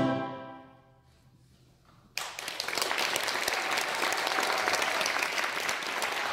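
A brass band's final chord dies away in the church's reverberation over about a second, then after a brief hush the audience breaks into applause about two seconds in.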